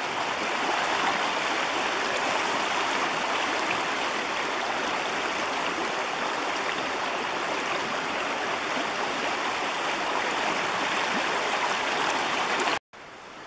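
Creek water rushing steadily over a shallow, stony riffle. Near the end it cuts off suddenly, then comes back fainter.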